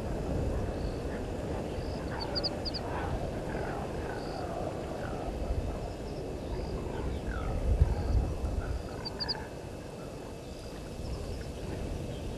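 Frogs calling in a chorus of short croaks and chirps, with small high trills repeating now and then, over a steady low rumble that swells briefly about eight seconds in.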